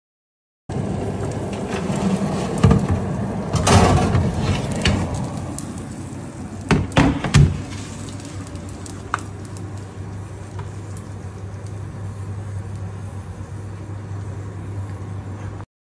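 A few knocks and clatters over a steady low hum, the loudest knocks coming in a cluster about seven seconds in.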